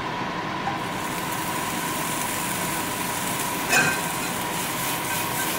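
Kitchen range hood fan running steadily on high, a loud even rush with a constant whine. A short clink about four seconds in.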